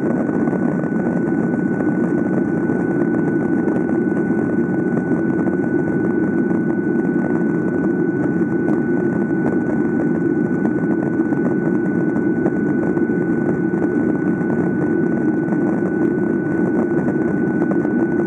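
Boeing 737 jet engines at full power during lift-off and climb-out, heard from inside the passenger cabin: a steady, even roar with a thin constant whine above it.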